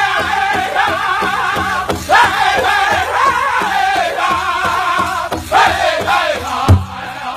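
Powwow drum group singing a chicken dance song: high, wavering men's voices in falling phrases over a steady beat on a shared big drum. Near the end the drum strikes get louder and slower.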